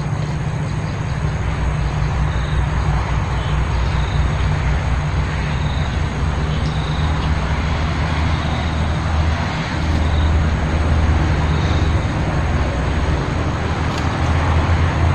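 Steady rumble and hiss of road traffic, swelling about ten seconds in and again near the end as vehicles pass.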